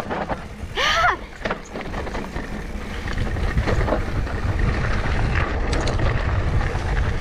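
Mountain bike descending a steep trail: tyre rumble and wind on the microphone, mixed with clicks and rattles of the bike, growing louder from about three seconds in. A short pitched squeal about a second in.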